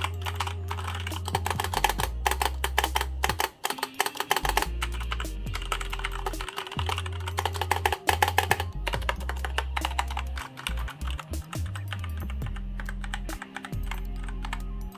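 Rapid, continuous typing on a Royal Kludge G87 mechanical keyboard with brown switches: a dense run of uneven key clicks. The switches are not very clicky. Background music with a steady bass plays underneath.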